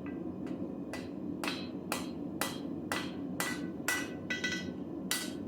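Hand hammer striking hot AEB-L stainless steel on an anvil, about two blows a second, several blows ringing. A steady low rumble runs underneath.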